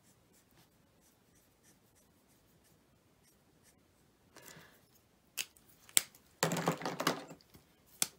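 Marker tip scratching faintly on cardstock, followed after about five seconds by sharp clicks and a second-long clatter of markers being handled on the craft mat, the loudest sound, with one more click near the end.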